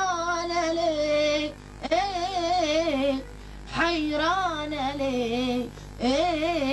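A boy singing long, ornamented wordless phrases in Arabic tarab style, his voice gliding and wavering through melismas. There are four phrases with short breaks for breath between them.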